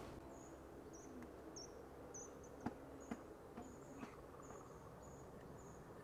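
Faint, high insect chirping: short chirps repeating about twice a second, with a couple of faint clicks near the middle.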